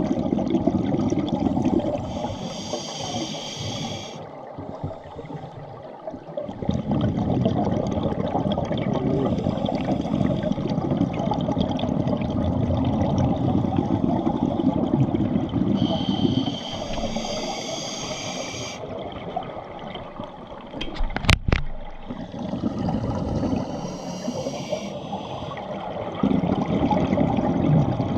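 A scuba diver breathing underwater through a regulator: long spells of bubbling exhaust noise alternate with shorter hissing inhalations, about three breaths in all. A single sharp knock comes about three-quarters of the way through.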